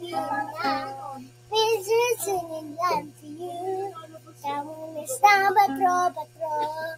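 A young boy singing alone, without accompaniment, with held and sliding notes in short phrases and brief pauses between them.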